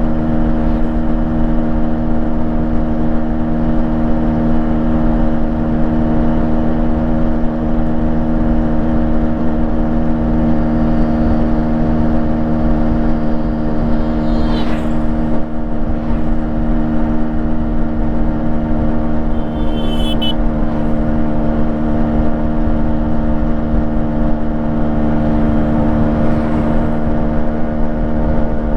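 Yamaha RX135's single-cylinder two-stroke engine with its stock exhaust, running steadily at a constant speed after a fresh engine rebuild.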